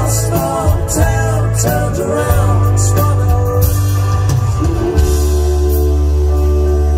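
Live rock band playing loudly, with electric and acoustic guitars, bass and drums. A male voice sings a wavering line in the first half, then the band holds sustained chords over a heavy bass.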